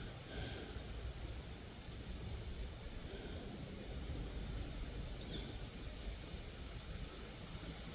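Faint outdoor ambience: insects trilling in one steady, high, thin note, over a low rumble.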